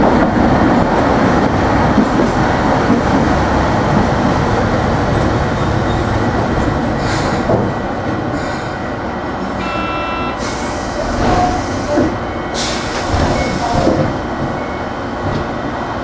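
Hiroshima Electric Railway 3700 series resistor-controlled tram running and slowing, its rumble dropping away over the first half as it comes to a stop. There are several short hisses of air, about seven, ten and twelve seconds in, and a brief electronic beep around ten seconds in.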